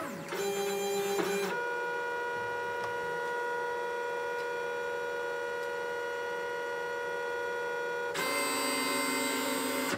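Lulzbot Mini 3D printer's stepper motors whining at steady pitches during its automatic bed-levelling routine, as the nozzle moves to touch the bed's corners. The tone shifts about a second and a half in and changes again near the end.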